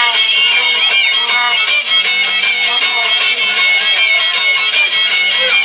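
Music with a steady high drone under wavering, sliding melody notes.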